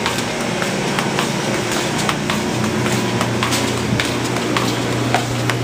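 A steady low hum with scattered light clicks and taps over a general background noise.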